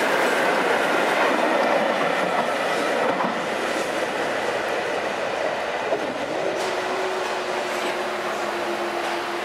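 Train passing on the rails: a steady rushing rumble of wheels and carriages. A steady low hum joins it about six and a half seconds in.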